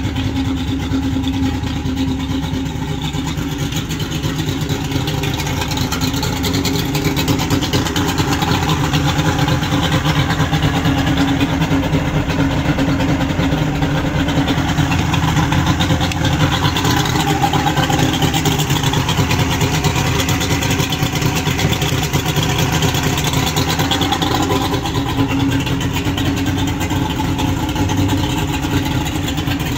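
The boat's 2003 Mercury 200 XL Saltwater 2.5L two-stroke V6 outboard running steadily at a constant speed.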